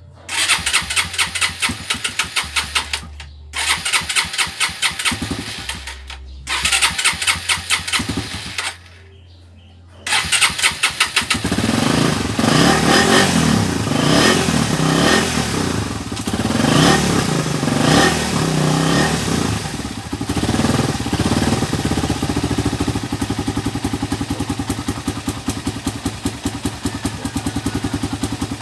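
Suzuki Raider 150's single-cylinder four-stroke engine cranked over in three bursts without catching, a hard start after its carburettor was cleaned. About ten seconds in it fires and runs, revving up and down unevenly, then settles into a steady idle.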